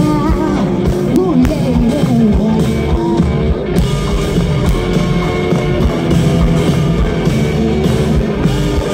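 Live rock band playing loud: drum kit and electric guitar, with singing over it during the first few seconds.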